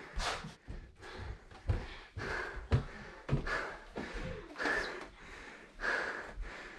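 A person breathing hard close to the microphone in short, repeated breaths, with soft footsteps and rustling underneath.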